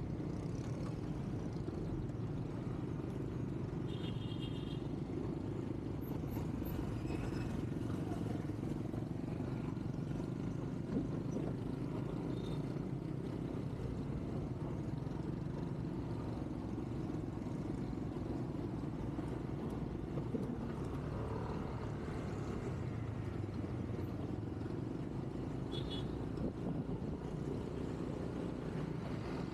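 A vehicle travelling along a road: a steady low drone of engine and tyre noise. Two brief high-pitched chirps sound, about four seconds in and near the end.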